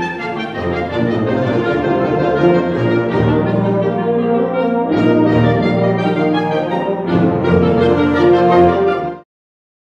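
Concert band of woodwinds and brass playing a passage together at full strength, cutting off abruptly about nine seconds in.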